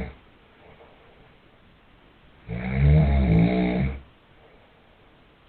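Snoring: one long, loud snore lasting about a second and a half near the middle, with the end of the previous snore right at the start.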